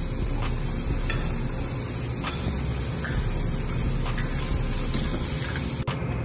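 Meat sizzling on a tabletop barbecue grill plate, a steady hiss, with a few light clinks of spoons on metal bowls. The hiss thins abruptly near the end.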